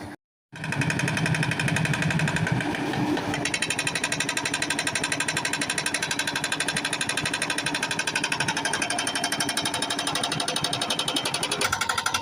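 Rock breaker hammering stone in a fast, even rhythm.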